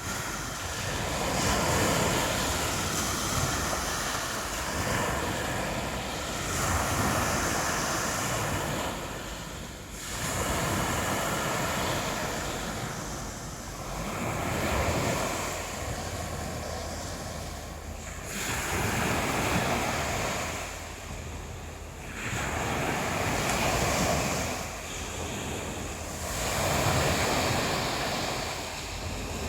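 Mediterranean Sea surf: waves washing in and drawing back, the sound swelling and fading about every four to five seconds.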